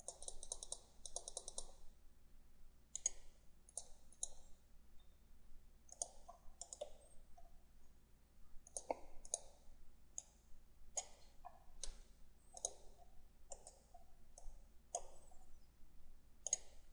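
Faint computer mouse clicks, some single and some in short quick runs, scattered throughout.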